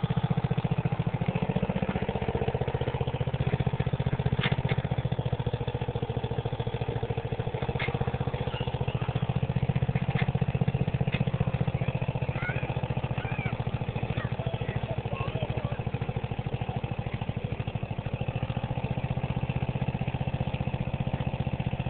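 Small ATV engine running steadily at low revs, near idle, with a fast, even putter.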